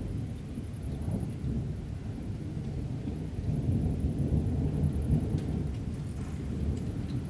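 Thunder from an approaching thunderstorm, a long low rumble that swells about halfway through and then dies back. A faint, steady pulsing high chirr runs under it.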